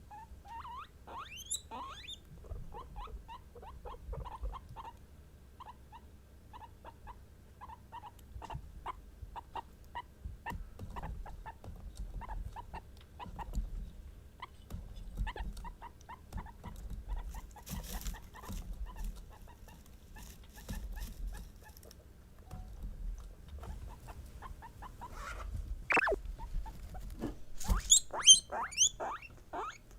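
Guinea pigs vocalizing: a long run of short squeaky notes, a few a second, with louder, higher-pitched squeals near the end.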